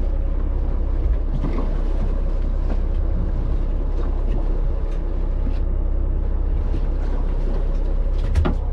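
Fishing charter boat's engine running steadily with a low drone. There are a few small knocks, the sharpest near the end.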